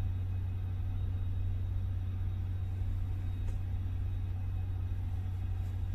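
Steady low hum of background machinery, with no distinct tool or impact sounds above it.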